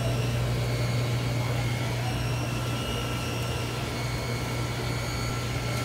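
Steady low hum and fan-like rush of commercial kitchen equipment running, with faint high tones that come and go.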